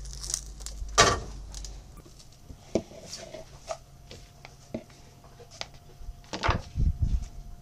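Food prep sounds: a knife cutting tomatoes and lettuce on a plastic cutting board, scattered knocks and clicks with a quick run of heavier chopping knocks near the end. A louder knock about a second in.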